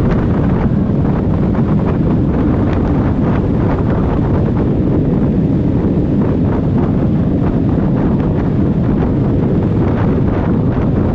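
Steady, heavy wind buffeting on the microphone of a motorcycle on the move, with the bike's engine running underneath.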